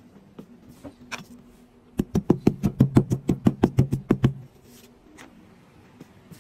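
A fluffy pad patted rapidly on a round mold disc: a quick, even run of about fifteen soft thuds over two seconds, roughly seven a second, starting about two seconds in.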